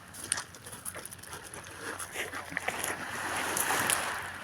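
Small sea waves washing onto a stony shore, swelling again near the end, with scattered sharp clicks of pebbles.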